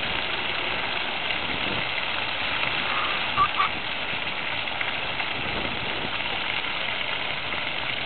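Splash-pad fountain jets spraying steadily and splashing onto wet paving. About three and a half seconds in, two short high chirps stand out above the water.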